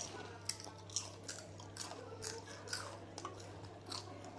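Close-up chewing of crunchy puffed snacks (Chiki Balls): a run of short, crisp crunches, several a second, over a steady low hum.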